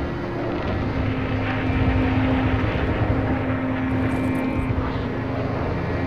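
A steady, engine-like rumbling drone with a few held tones that step down in pitch about a second in.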